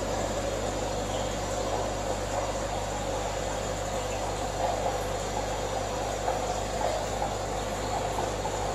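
Aquarium equipment running: a steady low hum with an even hiss of moving water and air.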